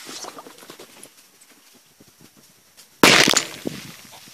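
A large firecracker exploding with one sharp, loud bang about three seconds in, after a few faint crackles, bursting the plastic soda bottle beside it. The bang fades over about a second with small crackles after it.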